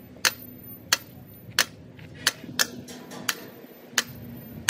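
Hammer striking metal in a steady series of sharp blows, about one and a half a second, with a low hum underneath.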